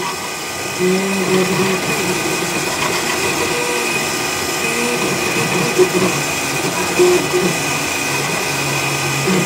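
3D printer printing: its stepper motors sing in short tones that jump to a new pitch every fraction of a second as the print head moves, over a steady high hum.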